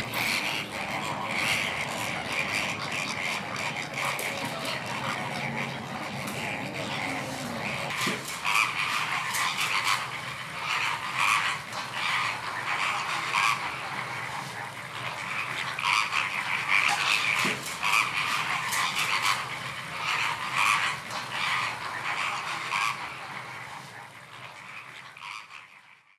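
A dense, continuous chorus of croaking animal calls that fades out near the end.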